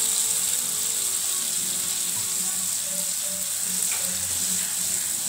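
Poppy-seed and green-chilli paste sizzling steadily in hot oil in a pan as a little water is poured in from a plastic bottle.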